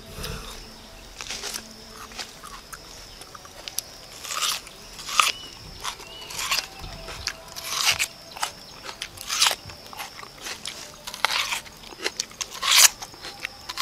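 Biting and chewing a whole raw red onion: a run of irregular crunches, the loudest near the end.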